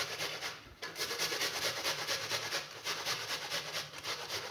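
An onion being grated on the fine side of a hand grater: quick, regular back-and-forth strokes, with a brief pause about half a second in.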